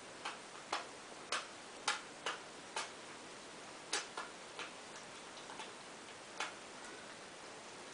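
Kittens lapping milk from a saucer: irregular little clicks from their tongues, a bit under two a second, growing sparser after about four seconds.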